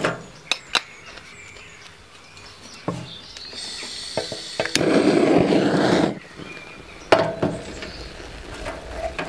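Handheld gas blowtorch lighting a wood-wool firelighter under charcoal briquettes: a few sharp clicks, then the torch flame runs with a steady hiss for about two and a half seconds starting near the middle, followed by another sharp click.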